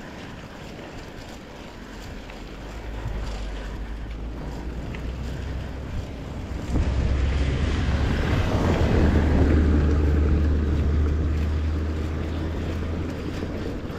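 Wind buffeting the microphone of a camera on a moving bicycle. It is a low rumble that grows about three seconds in and gets much stronger from about seven seconds in before easing near the end.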